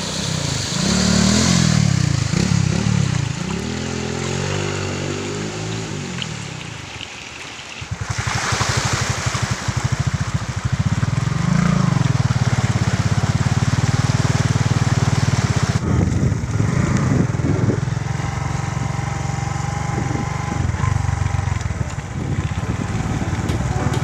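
Motorbike engine running through a shallow stream crossing, with water splashing around the wheels. The engine pitch rises and falls for the first several seconds, then runs more steadily after a break about eight seconds in.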